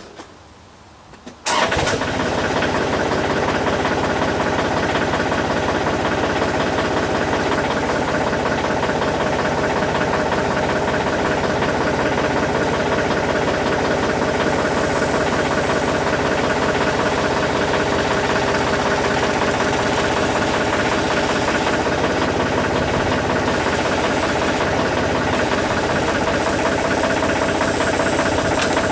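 Tractor engine that starts about a second and a half in and then runs steadily.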